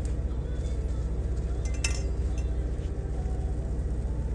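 Steady low drone of a semi truck's idling engine, with a sharp clink of a knife or utensil against a plate about two seconds in and a few lighter taps.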